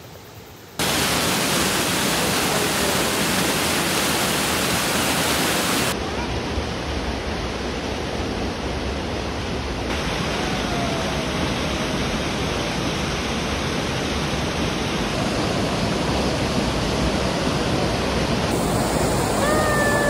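Small waterfall on Kerosene Creek, a geothermally warm stream, pouring into its pool: a steady rush of falling water that starts abruptly about a second in.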